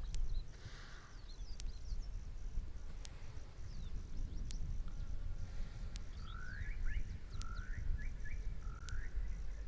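Outdoor wildlife ambience: short high chirping calls and, from about six seconds in, a run of four rising calls over a constant low rumble of wind on the microphone. A faint steady high buzz runs underneath, and sharp ticks come about every one and a half seconds.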